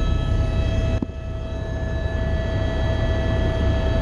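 Small aircraft's engine running steadily, heard from inside the cabin: a loud low rumble with steady tones above it. About a second in there is a click, and the level dips briefly before building back.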